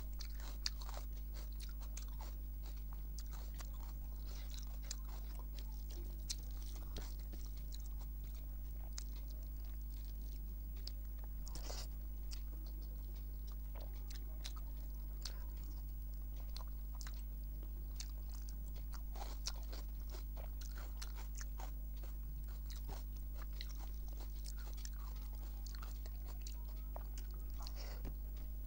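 Close-up eating sounds of a person eating rice and curry by hand: chewing and wet mouth sounds with scattered soft clicks, along with fingers mixing the rice on the plate. A steady low hum runs underneath.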